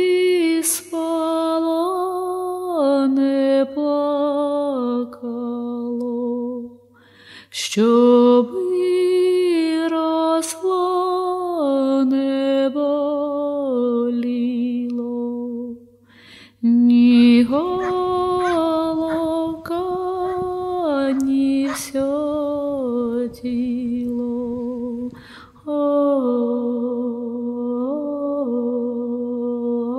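Slow Ukrainian folk lullaby sung by a single unaccompanied voice in long held phrases, with short pauses for breath about a third, halfway and five-sixths of the way through. A faint steady low hum lies underneath.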